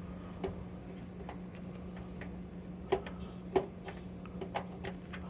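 Scattered light clicks and ticks at irregular intervals, two of them sharper about three and three and a half seconds in, over a steady low hum.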